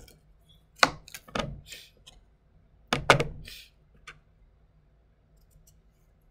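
Small kitchen knife cutting chayote on a plastic cutting board: a few sharp knocks of the blade on the board about a second in and again around three seconds, each with a short scraping hiss, then quiet.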